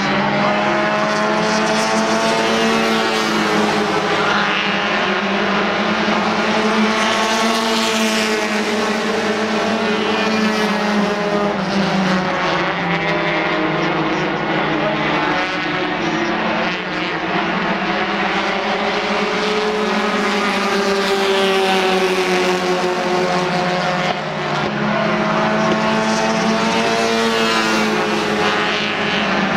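Several front-wheel-drive four-cylinder race cars lapping a paved oval together. Their engines rise and fall in pitch over and over as they accelerate down the straights and ease off into the turns.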